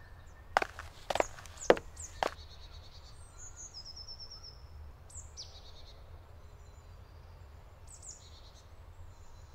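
Small songbirds singing short, repeated trilling phrases in a forest, over a low steady rumble. Four sharp knocks come in the first two and a half seconds, about half a second apart.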